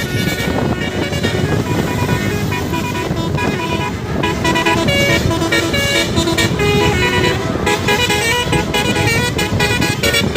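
Bus basuri telolet horn sounding through double roof-mounted trumpets, playing a quick tune of notes that change every fraction of a second, over the rumble of the bus.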